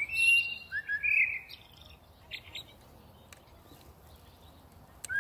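Blackbird calls: a run of short whistled chirps and slurred notes in the first second and a half, then quiet.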